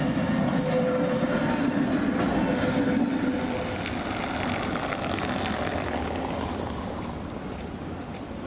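A Tatra T3 tram passes close on curved track with a low hum and a steady whine. After about three and a half seconds this gives way to the quieter rumble of a Škoda 15T ForCity tram taking the curve further off.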